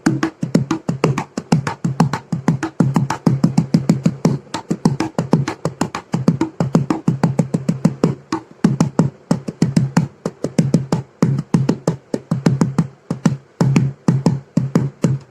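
Wooden cajon played with the hands in a fast, steady rhythm of several strokes a second. Deep bass tones alternate with sharper slaps from the front plate's edge.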